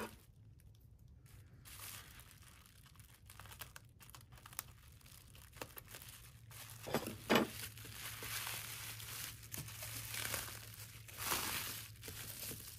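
Plastic bubble wrap crinkling and rustling as it is pulled open and handled around small ink sample vials. Two short, louder sounds come about seven seconds in, and the crinkling grows denser after that.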